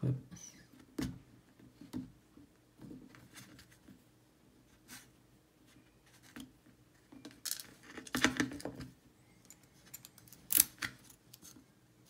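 Scattered small metallic clicks and scrapes from a Zeiss Ikon TK5 lock cylinder and its 3D-printed clip being handled, with a cluster of sharper clicks a little past halfway and the loudest single click near the end.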